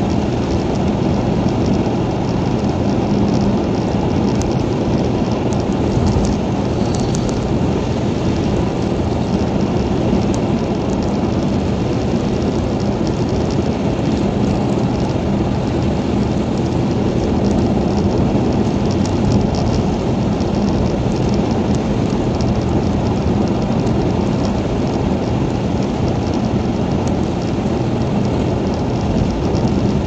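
Steady road and tyre noise from a car driving on a wet highway in rain, heard from inside the cabin, with a low hum under it and occasional faint ticks of rain on the windscreen.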